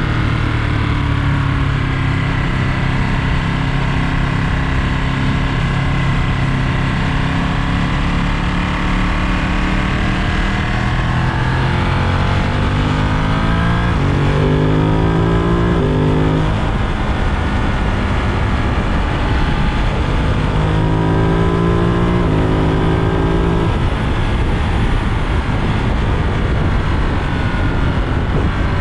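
Ducati Monster 937's 937 cc Testastretta V-twin engine running under way over a steady rush of wind and road noise. The revs climb twice, about halfway through and again near three-quarters of the way, each pull breaking off with a sudden drop in pitch.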